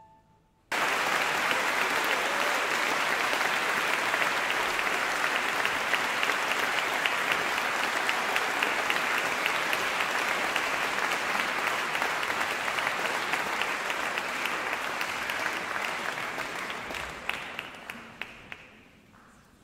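Audience applauding at the end of a concert piece. The applause starts suddenly about a second in, holds steady, then thins out to a few last claps and dies away near the end.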